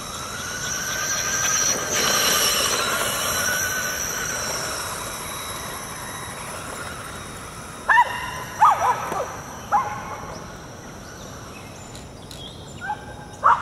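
Radio-controlled monster truck's motor whining, its pitch rising and falling as it speeds across the grass. From about eight seconds in, Boston terriers give a run of short, sharp barks, with a few more near the end.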